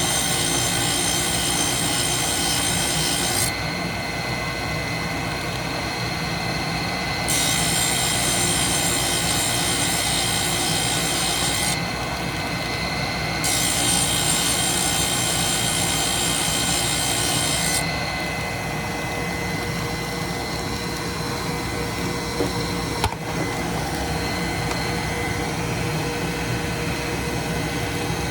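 Saw-sharpening grinder motor running steadily while its wheel face-grinds the teeth of a stack cutter. Three grinding passes of about four seconds each add a hissing, high-pitched grind, with the motor alone between them. A single sharp click comes near the end.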